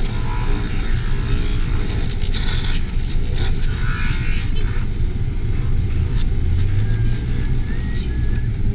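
Steady rumble of street traffic close by, engines of passing vehicles running without a break.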